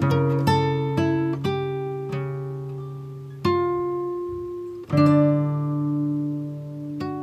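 Background music: a slow acoustic guitar playing plucked notes and chords that ring and fade, with fresh chords struck about halfway and again about two-thirds of the way through.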